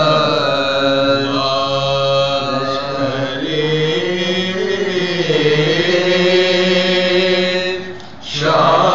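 Men's voices chanting a soz, a Shia mourning lament in Urdu, unaccompanied, with long held notes that bend slowly in pitch. The chant dips briefly about eight seconds in, then comes back strongly.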